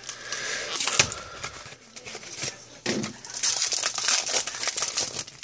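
Foil wrapper of a Pokémon TCG booster pack crinkling and tearing as it is opened by hand, in irregular rustles that are loudest in the second half.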